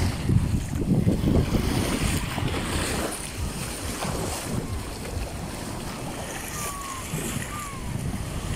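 Wind buffeting the microphone over small waves washing up on a sandy shore. The gusty rumble is strongest in the first two seconds.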